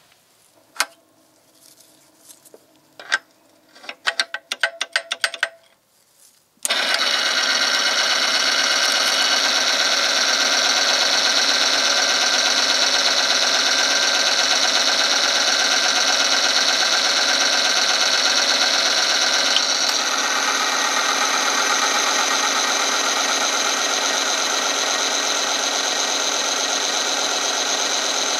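Clicks and taps from the rig being readied, then an oil-film friction tester switches on about six seconds in. Its electric motor spins a test ring against a loaded sample in oil heated to 100°C, with a loud, steady, high-pitched whine of metal rubbing under load. A click near twenty seconds comes as another weight goes onto the lever arm, and the rubbing sound shifts lower.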